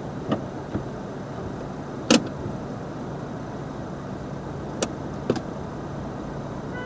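Car idling at a standstill, heard from inside the cabin: a steady low hum with a few scattered clicks and knocks, the sharpest about two seconds in.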